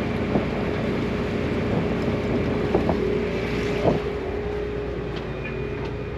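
Fishing boat's engine running steadily, with a few short knocks from gear on deck.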